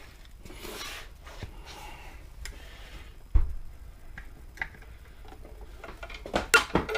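Scattered light clicks and rustling, with one dull knock about three and a half seconds in: hands handling tools and bike parts.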